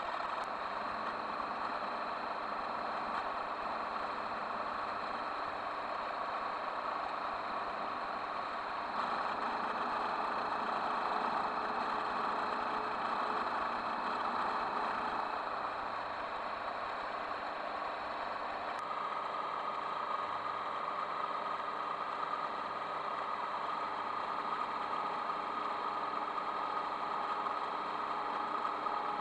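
Mini lathe running with a steady whine from its motor and gearing as it turns a metal bar with an MGMN200 grooving insert. The tone of the whine shifts a little about two-thirds of the way through.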